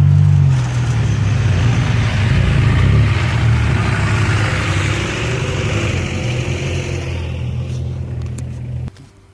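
Off-road 4x4 vehicle engine running loudly close by, with a rush of noise over the engine note. The sound cuts off suddenly near the end.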